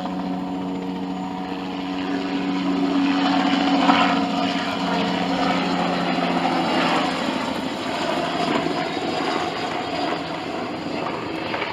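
Helicopter flying, its engine and rotors making a steady drone that fades after about seven seconds.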